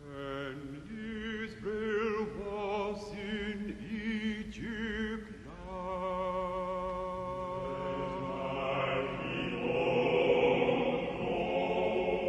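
Operatic choral singing with heavy vibrato: voices slide between notes in the first few seconds, then settle into fuller held chords from about six seconds in.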